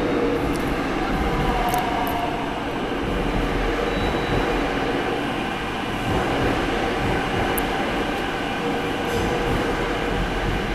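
Seoul Subway Line 5 train rolling into the station, heard from the platform behind glass screen doors. A steady rumble of wheels and motors with a few faint whining tones.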